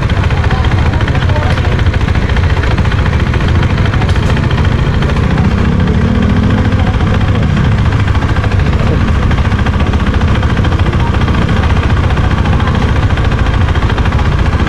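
Husqvarna Svartpilen 401's single-cylinder engine running steadily at low revs, its pitch rising and falling briefly about six seconds in.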